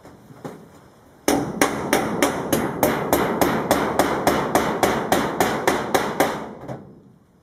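Hammer rapidly striking on corrugated metal roofing sheet fixed to a wooden frame, about five even blows a second, with ringing carrying between blows. It starts about a second in and stops near the end.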